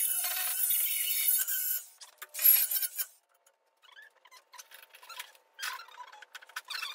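Flap disc on a cordless angle grinder sanding a steel repair panel: a steady rasping hiss that stops about two seconds in, gives way to a few short scrapes and a brief lull, and starts up again at the very end.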